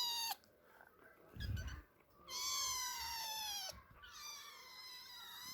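Kittens meowing, hungry and begging to be fed. Long, high-pitched meows come one after another: a clear one about two seconds in and a fainter one near the end. A short low thump comes just before the first full meow.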